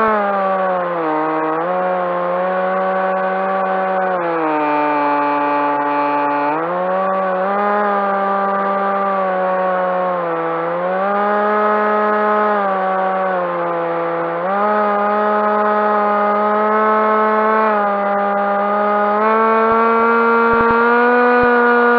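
Electric motor and propeller of a Skywalker RC plane running in flight, a steady whine whose pitch steps down and back up several times as the throttle is eased off and opened again. The deepest dip is about a quarter of the way in.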